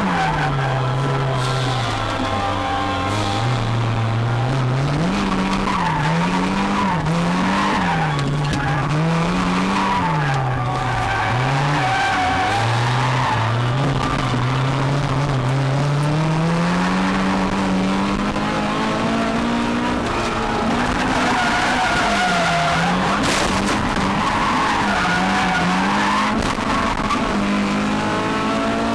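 Toyota AE86's four-cylinder engine revving up and down again and again through a drift, with the revs held high for a few seconds past the middle, heard from inside the cabin. Tyres squeal throughout.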